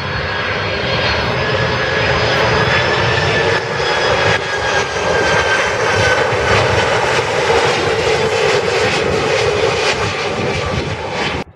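Jet airliner's engines as it passes close on landing: a loud steady roar that builds over the first couple of seconds, with a faint whine sinking slowly in pitch. The sound cuts off abruptly near the end.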